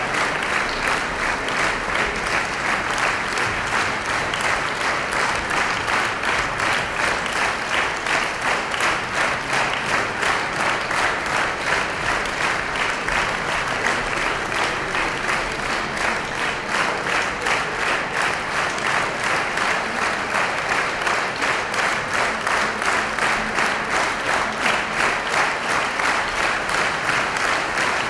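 Concert hall audience applauding. Partway through, the clapping settles into a steady rhythm in unison, about three claps a second.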